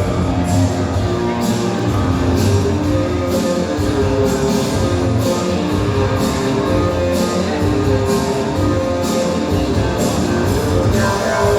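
Loud rock-style music with guitar and a steady drum beat, played over a sound system.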